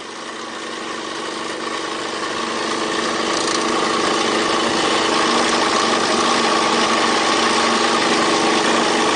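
1/14-scale RC Volvo A40G articulated dump truck running under load: a steady engine-like drone with a whine that grows louder over the first four seconds, then holds level.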